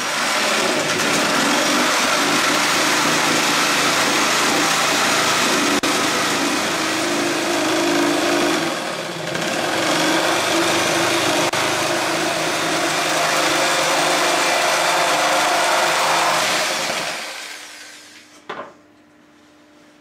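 Electric jigsaw sawing through a wooden board, running steadily with a brief dip about halfway through the cut, then winding down and stopping a couple of seconds before the end.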